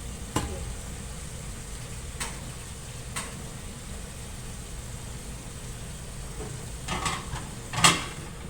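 Kitchen work over a steady low hum: a few sharp clicks of utensils, then a couple of louder knocks near the end.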